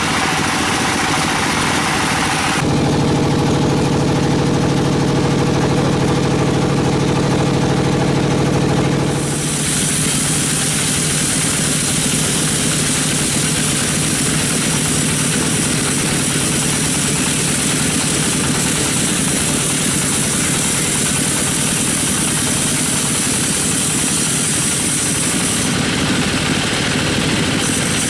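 Sawmill machinery running steadily and loudly, its sound changing abruptly about two and a half seconds in, again about nine seconds in, and near the end.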